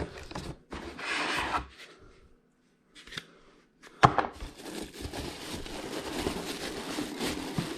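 Cardboard box and packaging being handled: a burst of rustling, a pause, a sharp knock about four seconds in, then steady scraping and rustling as the rice cooker is worked out of the box.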